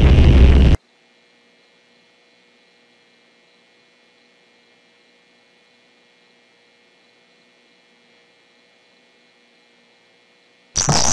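Loud, dense music cuts off abruptly just under a second in, leaving about ten seconds of near silence with only a faint steady electrical hum. Near the end a burst of loud, harsh static noise cuts in.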